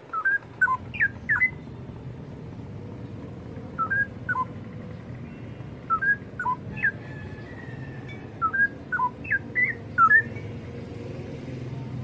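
Straw-headed bulbul (cucak rawa) singing: four phrases of short, sliding whistled notes, each about a second long and a couple of seconds apart, over a steady low background hum.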